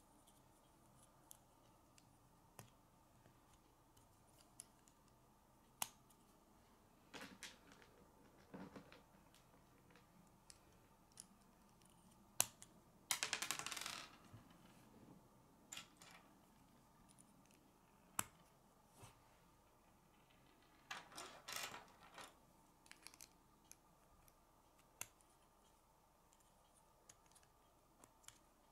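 K'nex plastic rods and connectors being snapped and pressed together by hand: scattered sharp clicks, with a quick rattling run of clicks about halfway through and another cluster of clicks a little later.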